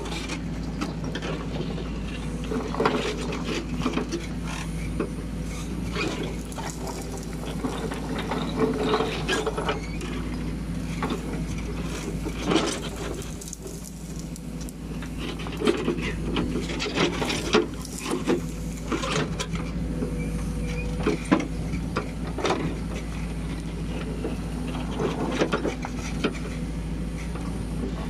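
Cat 434E backhoe loader's diesel engine running steadily while its rear bucket digs into rubble. Repeated clanks and scrapes come from the steel bucket striking and dragging curbstones and broken concrete.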